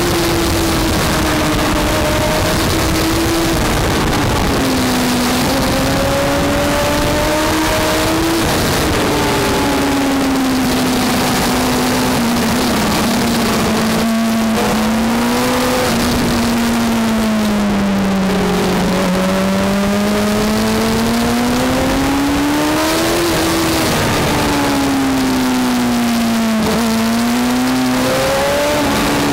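A racing engine heard from onboard, held at high revs, its pitch rising and falling through the corners with a few sudden drops, over a steady rush of wind and road noise.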